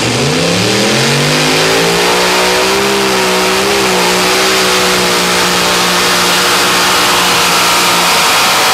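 Multi-engine modified pulling tractor running at full throttle under load: the engines' pitch climbs over the first two seconds as it launches, then holds at high revs, with a brief waver a little over three seconds in. Loud throughout.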